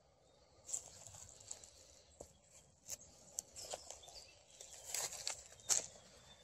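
Footsteps on dry fallen leaves and twigs, faint rustles with a few sharper crackles at irregular intervals.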